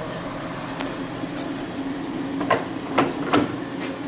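Economaster 18x60 lathe (Colchester clone) running, its headstock gearing and 10 horsepower three-phase motor giving a steady hum. A few sharp knocks come through it, the loudest three in quick succession past the halfway point.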